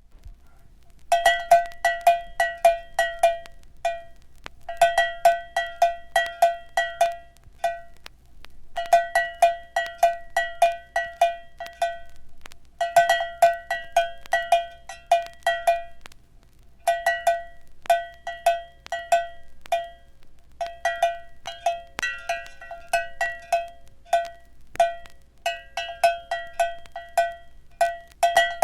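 Cowbell struck again and again in quick runs of about four or five strikes a second. Each run lasts about three seconds, with a short pause before the next, and the runs repeat roughly every four seconds. Each strike gives a bright metallic ring, beginning about a second in.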